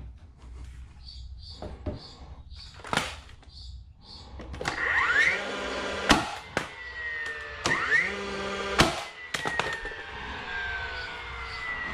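DeWalt cordless framing nailer driving nails into pressure-treated lumber: twice its motor spins up with a rising whine and then fires with a sharp bang, the motor winding down with a falling tone afterwards. A single wooden knock comes about three seconds in.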